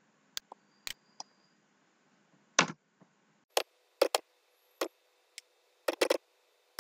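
Computer keyboard keystrokes and mouse clicks: separate sharp taps at an uneven, unhurried pace, a few in quick pairs and threes, as text is typed into a field.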